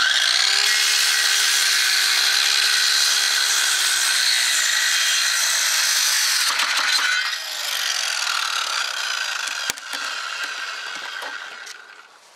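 Drillmaster 7¼-inch electric circular saw starting abruptly and ripping through a wooden board for about seven seconds. It then runs quieter and fades out near the end as the cut finishes, with a single sharp click about ten seconds in.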